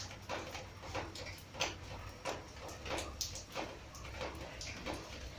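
Light clicks and taps at irregular intervals over a steady low hum.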